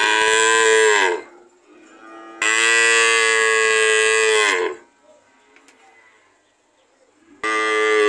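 Cattle mooing: three loud calls, each dropping in pitch as it ends. The first ends about a second in, the second lasts about two seconds, and the third begins near the end.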